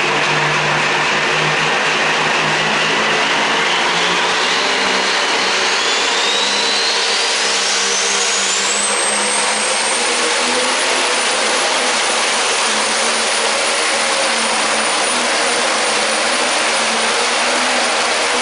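Pro stock pulling tractor's turbocharged diesel engine running flat out under load on a pull, its turbocharger whine climbing steeply in pitch over about four seconds and then holding steady at a very high pitch.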